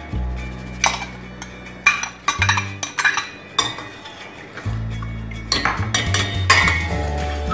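Background beat music with a steady bass, over a steel ladle stirring milk and rice in a stainless steel pot, clinking against the pot's side several times.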